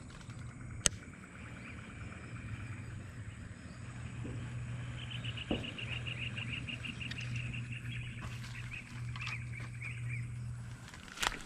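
Insects chirping in rapid pulsed trains over a steady low hum. A single sharp click comes about a second in, and a couple of knocks come near the end.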